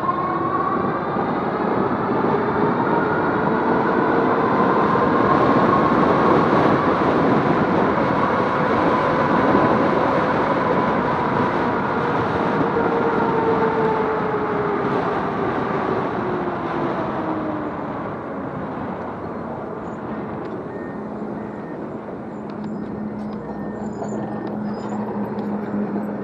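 Romeo Ultra 2 e-bike riding: wind and tyre noise with a whine whose pitch slowly rises and then falls, growing louder and then quieter. A steady low hum comes in near the end.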